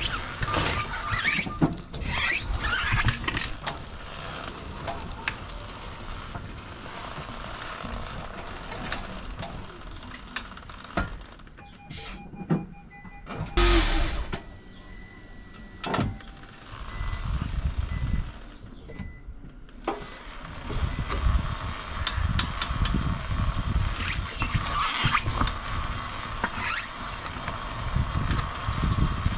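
Nissan Note moving slowly with irregular clicking from the running gear: the crunchy noise at full steering lock that turned out to come from a worn front hub bearing, not the driveshaft.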